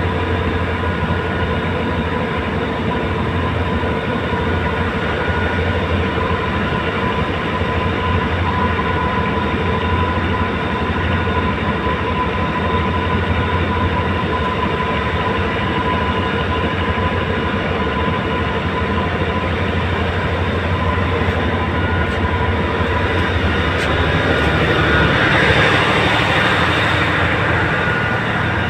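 Boat engine running steadily on board, a constant droning hum. A louder hiss swells briefly near the end.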